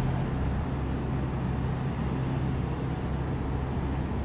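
Steady low hum of ship machinery, a few fixed low tones under an even rushing noise.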